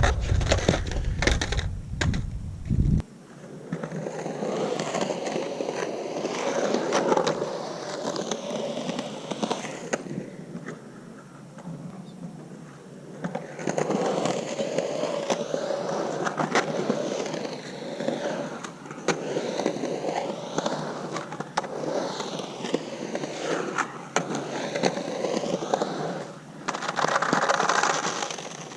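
Skateboard on hard Santa Cruz Slime Ball 97a urethane wheels rolling and carving around a concrete bowl, the wheel roar swelling and fading with each pass. A few sharp clacks come in the first couple of seconds.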